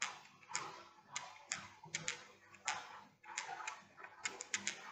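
Thin 2.5 mm metal knitting needles clicking against each other as knit stitches are worked: a run of light, irregular clicks, about two or three a second.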